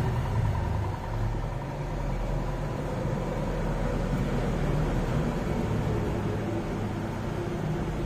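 A pair of snail-type (spiral) electric horns sounding in a steady, held blast.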